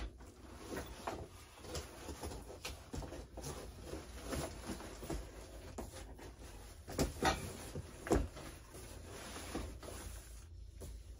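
Nylon carry bag of a pop-up canopy being handled and tugged at its end: irregular rustling and scuffing with scattered small knocks. A few louder dull thumps come about seven and eight seconds in.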